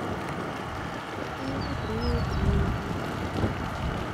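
Wind buffeting the microphone in gusts, with a low rumble that swells about two seconds in, over a steady outdoor background with a few faint high chirps.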